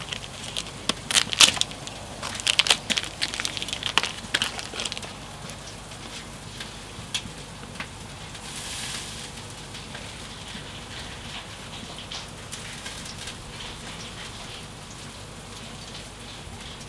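Crinkling and sharp clicks from a plastic sausage pack being cut open and handled for the first few seconds, then the gas grill running under its closed lid: a steady hiss with light, scattered crackling of food cooking.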